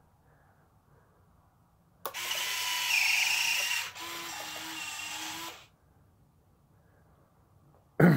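A small motorized mechanism whirs for about three and a half seconds, starting abruptly, louder in its first half and then lower until it cuts off. A short sharp thump comes at the very end.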